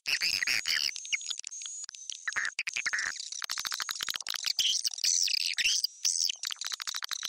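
Swiftlet lure call recording: dense, high twittering chirps that turn into a fast, buzzy run of clicks about halfway through. It is the kind of sound played from tweeters to draw swiftlets into a nesting house.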